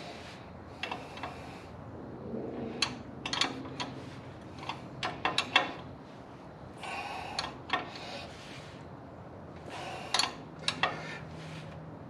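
Hand tools and metal brake parts clinking and knocking in a series of short, irregular strikes, thickest in the middle, with a few brief stretches of hiss.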